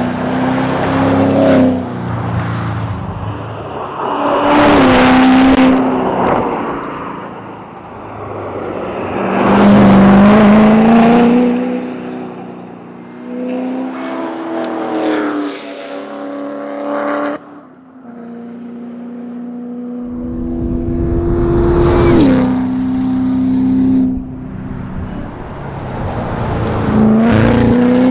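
Chevrolet Corvette C7 Z06's supercharged V8 driven hard at racing pace, revs climbing and falling again and again with the gear changes. It grows loud several times, loudest about 10 seconds in.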